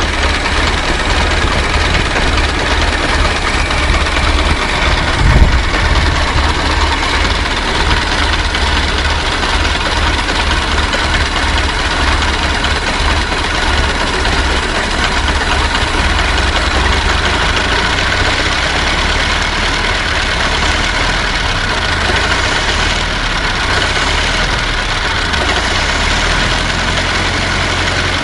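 Old car's engine idling steadily, with one short, louder low thump about five seconds in.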